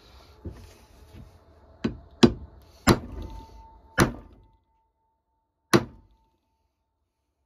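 A run of sharp knocks: two faint ones in the first second or so, then five loud, separate blows spread unevenly over the next few seconds, with a faint steady ring after the fourth.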